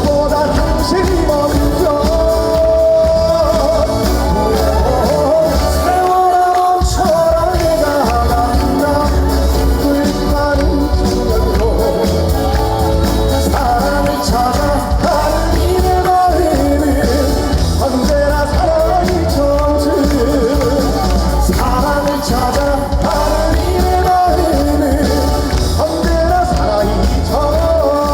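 Upbeat trot song performed live by a band, with a steady bass beat under a melody line and some singing.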